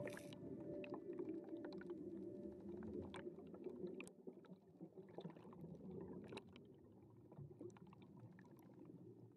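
Faint underwater ambience: a low rumble of moving water with scattered sharp clicks, fading gradually. A held tone dies away in the first few seconds.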